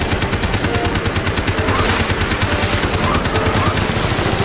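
Rapid, unbroken string of sharp gunshot cracks, about eight to ten a second, in the manner of a Winchester 1887 lever-action shotgun sound effect fired over and over.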